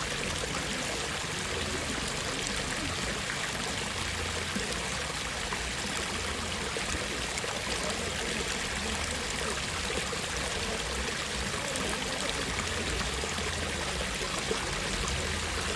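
Water running steadily, an even, continuous rushing sound with no breaks.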